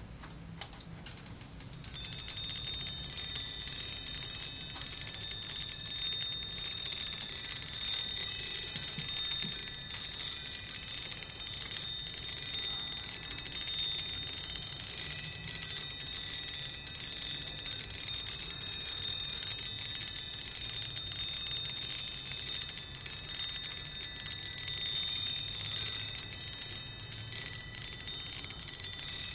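Small solid brass chime rods rung continuously by copper-coated bead pendulums that shuttle between a 5,000-volt centre rod and the grounded rods around it, giving a steady, high, tinkling ring of many overlapping tones. The ringing starts about two seconds in.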